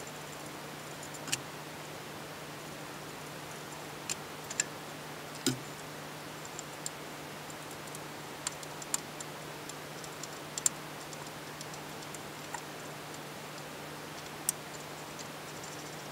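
Scattered sharp metallic clicks and taps of tools and parts being handled on a Fiat 500 cylinder head during dismantling, coming irregularly, a dozen or so, over a faint steady hum.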